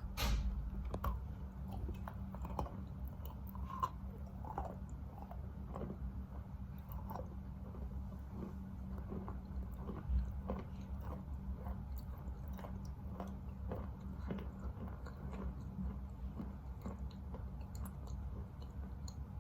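A bite into a piece of wet Khrapovsky chalk just after the start, then steady chewing with many small gritty crunches as the grainy chalk is ground down into a paste.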